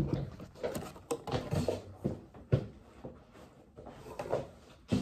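Scattered soft knocks and clunks of people moving about a room, coming irregularly every second or so with quiet gaps between.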